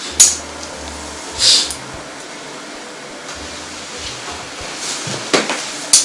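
Haircutting scissors snipping through hair: a few separate short, crisp cuts spaced out over several seconds, over quiet room tone.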